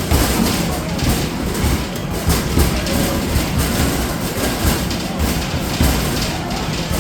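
Arcade basketball machine in rapid play: balls thumping against the backboard and rim several times a second and rumbling back down the return ramp, with a steady rattling din underneath.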